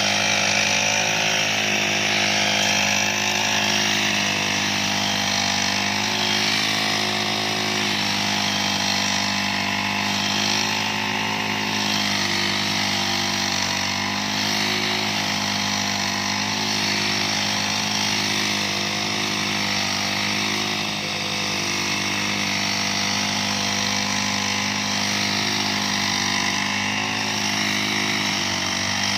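A grass-cutting machine's small engine running steadily at a constant speed.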